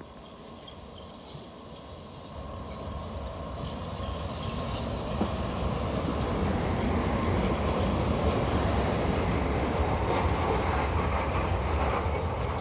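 An ET22 electric freight locomotive approaches and passes, followed by a string of open freight wagons rolling by. The rumble of the wheels on the rails grows louder over the first few seconds, then holds steady. There are bursts of high wheel noise and clatter over the rail joints.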